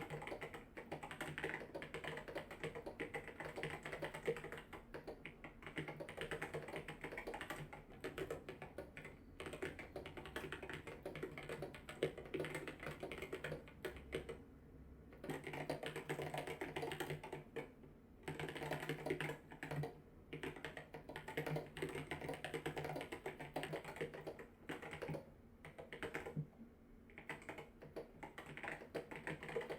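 Typing on a Lazydesigners Bolt 40% alice-like mechanical keyboard with a polycarbonate plate: a continuous run of keystroke clacks, broken by a few short pauses.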